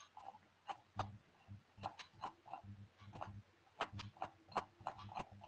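Faint, irregular clicking, two or three clicks a second, from a computer mouse.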